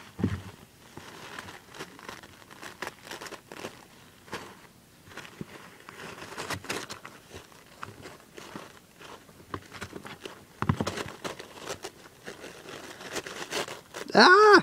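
Crumpled soft paper rustling and crinkling in irregular bursts as it is waved and dragged over carpet and batted at by a Siamese kitten. There is a low thump right at the start and a short, loud voice-like call near the end.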